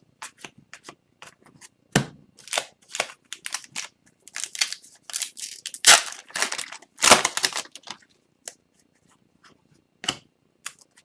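Hockey card packs being opened and gone through by hand: foil wrappers crinkling and cards sliding and snapping against each other. It is an irregular run of short clicks and rustles, denser and louder around the middle.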